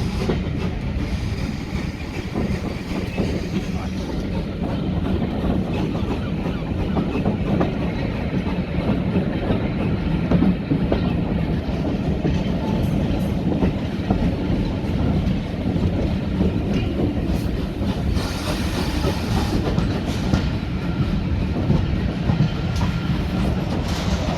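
Railway carriage running along the track: a steady rumble with the wheels clicking over rail joints.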